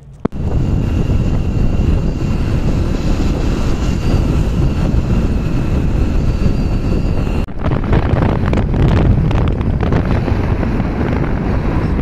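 Heavy wind buffeting the microphone, a loud steady rumble with a thin high whine over it for the first seven seconds or so. The sound cuts off abruptly and changes to a rougher rumble about seven and a half seconds in.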